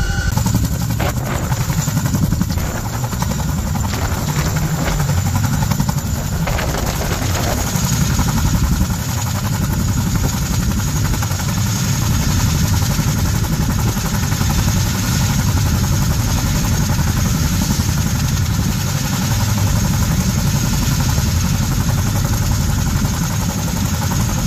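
CH-47 Chinook tandem-rotor helicopter running with its rotors turning, a loud, steady, fast low beat of the blades over the turbine noise.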